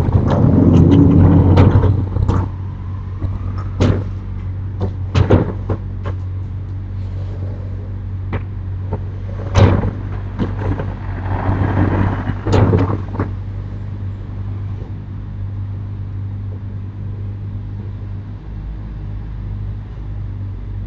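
Sliding storm shutters (amado) being pushed open along their tracks: rumbling slides, the loudest at the start and another later on, with several sharp knocks and bangs as the panels move and hit. A low steady hum runs underneath.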